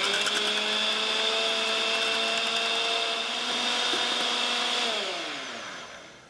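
Electric hand mixer running at a steady speed, its twin beaters whipping egg whites into foam in a stainless steel bowl. About five seconds in it is switched off and the motor winds down, its whine falling in pitch as it fades.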